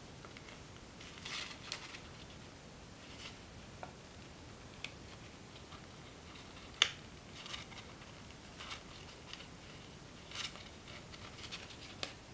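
Faint crinkling and rustling of paper being folded and pinched by hand, with scattered small crackles from the creases and one sharper click about seven seconds in.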